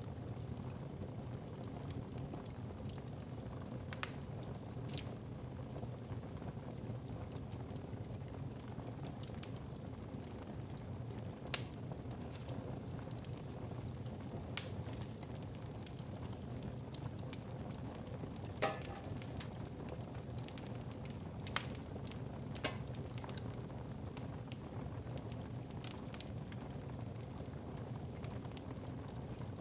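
Wood fire in a fireplace crackling, with a steady low rustle and irregular sharp pops every few seconds.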